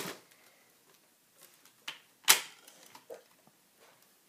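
Plastic toy parts clicking and knocking as a figure is set into the saddle of an Imaginext Mega Apatosaurus toy dinosaur: four short, sharp clicks with quiet between, the loudest a little after two seconds in.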